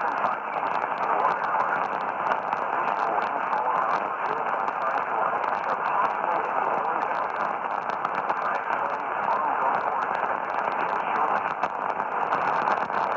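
Radio receiver static: a steady, band-limited hiss with a faint crackle, between transmissions.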